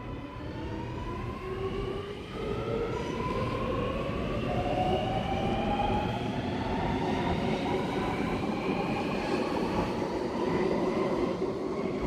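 Alstom Metropolis metro train pulling away, its traction motors giving several whines that climb steadily in pitch over a low rumble as it accelerates.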